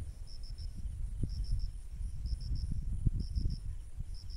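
An insect, cricket-like, chirping in quick high triplets about once a second, with a faint steady high insect hum behind it. A low rumble with a few soft knocks runs underneath and is the loudest part.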